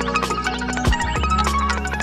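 Background music: a quick melody over held bass notes.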